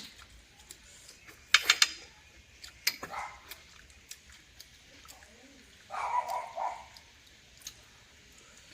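Loud, sharp slurps as spicy sea snails are sucked from their shells, the loudest about a second and a half in and another near three seconds, then a short, higher sound about six seconds in.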